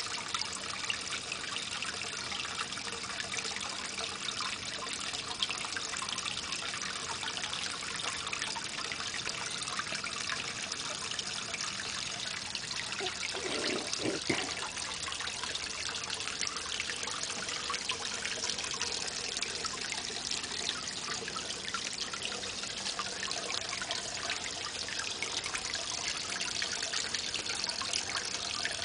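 Pond fountain nozzle bubbling water up onto the surface, a steady splashing trickle. About halfway through it sounds deeper for a moment.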